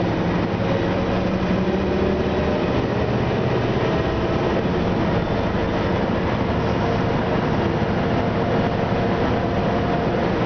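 Inside a moving Orion VII city bus: its Detroit Diesel Series 50 four-cylinder diesel runs through an Allison B400R automatic, with steady road and tyre noise. A low engine tone drops away about two seconds in, and a faint whine rises slightly in pitch later on.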